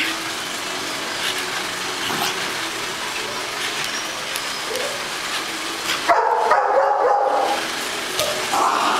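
Dog barking, with a longer drawn-out call about six seconds in and another near the end.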